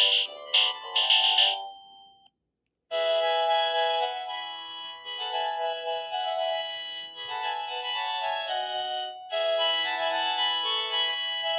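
Panasonic KX-TGD532 cordless phone playing its ringtones through its speaker: a pulsing electronic ring pattern, about two pulses a second, stops about a second and a half in. After a short silence, a synthesized melody ringtone of several notes at once begins and plays on.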